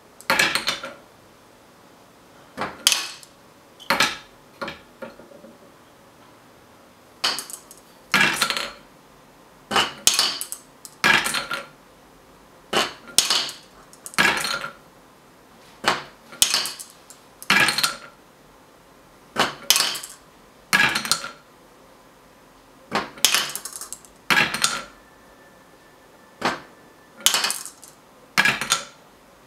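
Glass marbles running through a wooden gravity marble toy: a short clatter of knocks and clinks on wood and glass about every one to two seconds as each marble is released from the ramp and drops through the mechanism.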